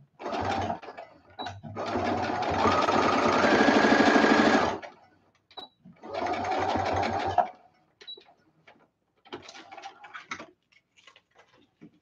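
Brother electric sewing machine stitching a seam in three runs: a short burst, a run of about three seconds that speeds up twice, then a run of about a second and a half. Light clicks and taps follow once the machine stops.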